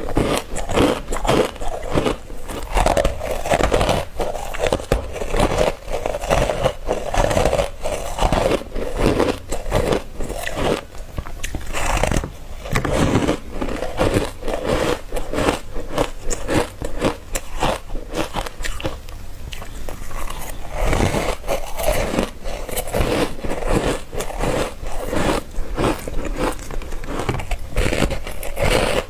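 Ice being bitten and crunched, one sharp crunching bite after another in quick succession.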